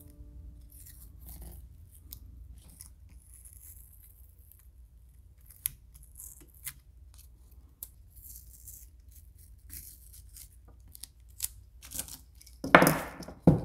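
Blue masking tape being peeled off a painted resin fishing lure: scattered faint crackles and rustles, then a louder ripping noise near the end.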